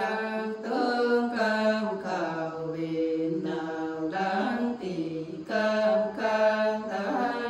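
Women singing a Nùng folk song unaccompanied, in slow, chant-like phrases of long held notes that slide up and down, with brief breaths between phrases.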